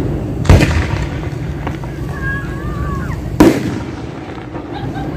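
Fireworks shells bursting overhead: two loud bangs about three seconds apart, each echoing briefly, over a low background rumble.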